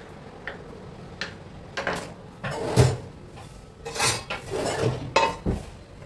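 Dishes and metal utensils clattering and clinking, with a string of separate knocks and clinks; the loudest clatters come about three seconds in and again between four and five and a half seconds.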